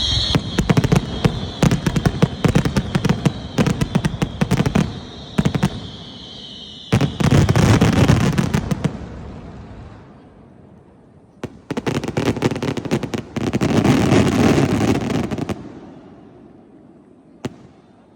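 Aerial fireworks going off: volleys of loud crackling bangs in three waves, with a high whistle that slowly falls in pitch and stops about seven seconds in, then a last single pop near the end.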